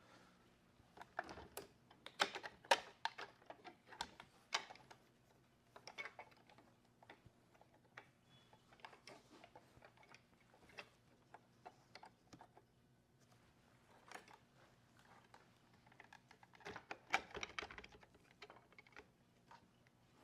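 Irregular light clicks and taps of hands handling and fitting parts, bunched into a few busy spells, over a faint steady low hum.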